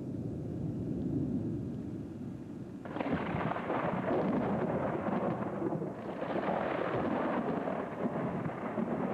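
Thunder: a low rumble, then about three seconds in a sudden louder peal that rolls on for several seconds, swelling and fading.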